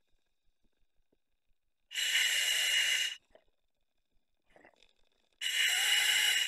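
Scuba diver breathing through the regulator of a full face mask: two hissing inhalations of about a second each, about three and a half seconds apart.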